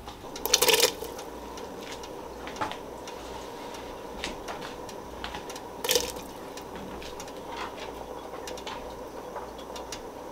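Stock pot of chicken broth with diced potato, leeks and celery bubbling on the stove, a steady watery hiss, with two short knocks about half a second in and again about six seconds in.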